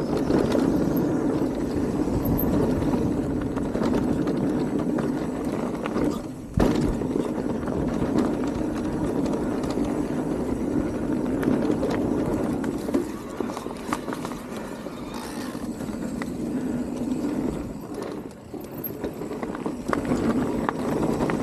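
Radon DEFT 10 e-mountain bike rolling down a dirt trail. The tyres run on the ground while the bike clatters and rattles over bumps, with one hard knock about six seconds in.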